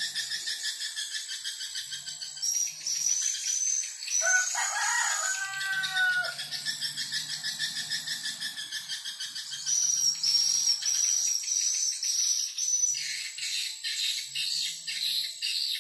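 Swiftlet lure call played through the swiftlet house's speaker: a rapid, pulsing, high-pitched twitter that repeats without pause. About four seconds in, a lower call with falling pitch cuts in for about two seconds.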